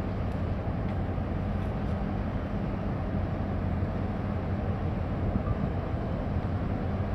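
Steady low drone of a large container ship's engines and machinery as it passes close by under way, with a constant deep hum under a broad rumble.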